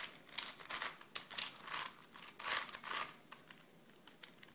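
Plastic clicking and clacking of a WitEden Super 3x3x8 cuboid puzzle's layers being turned by hand: a quick run of turns, fading to a few faint clicks after about three seconds.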